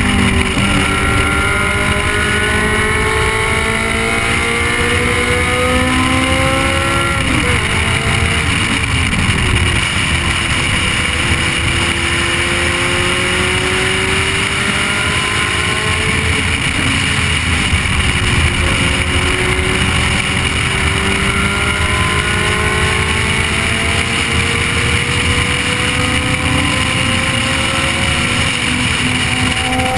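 Ferrari F355 Challenge's V8 engine under hard acceleration, its pitch climbing for several seconds, dropping sharply about seven seconds in, dipping again around the middle and then climbing once more. A steady rushing noise runs underneath.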